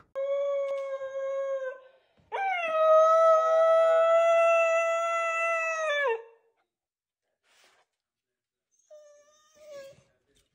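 A dog howling in long, steady notes: a short howl, then after a brief gap a longer, louder one of about four seconds that drops in pitch as it ends. A few faint short whines come near the end.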